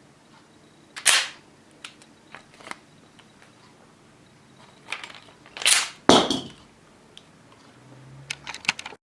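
3D-printed plastic model of the Hino-Komuro pistol clacking as its mechanism is worked: one sharp clack about a second in, a few light ticks, then a scraping clack followed by a heavier one around five to six seconds in, and a quick run of light clicks near the end.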